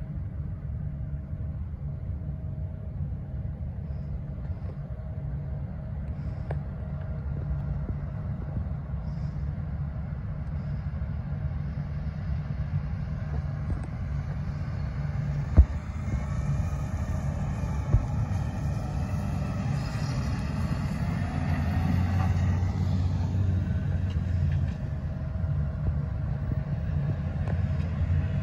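New Holland CR10.90 combine harvester running steadily while cutting wheat. Midway a tractor pulling a grain trailer passes close by, and the engine sound swells, with two sharp knocks.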